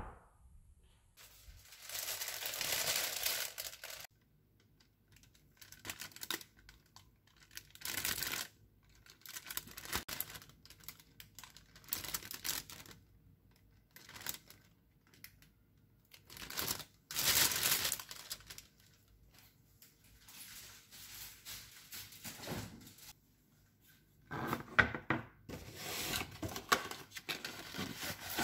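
Plastic bags and packaging rustling and crinkling in short bursts, with pauses between, as groceries are unpacked.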